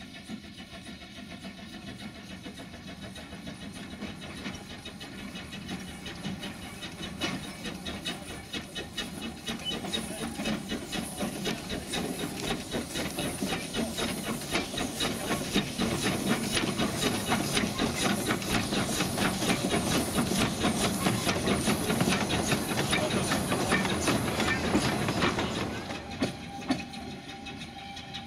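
Narrow-gauge saddle-tank steam locomotive pulling away with a train, its exhaust chuffing in a quick even rhythm over the hiss of steam from the cylinders. It grows louder as it passes close by, then drops away sharply near the end.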